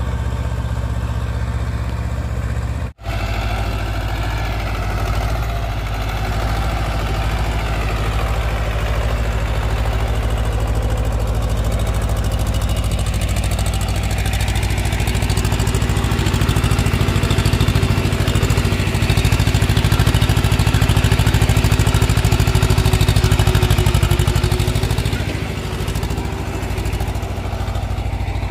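Swaraj 724 FE tractor's two-cylinder diesel engine running steadily as it pulls a tine cultivator through the soil. The sound drops out for an instant about three seconds in, grows louder for a stretch past the middle, and eases off near the end.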